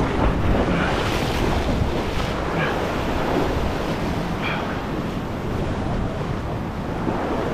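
Sea swell breaking and washing white against a rock ledge, with wind on the microphone.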